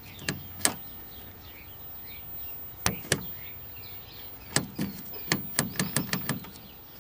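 Scattered sharp clicks and taps from hands working at a vintage color TV set, including its switches: two at first, a pair about three seconds in, then a quick run of them over the last two and a half seconds.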